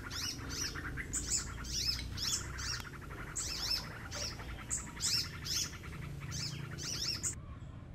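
Birds chirping: a run of quick high calls, each sliding downward, repeated over and over above a fast buzzy trill. The birdsong cuts off abruptly near the end.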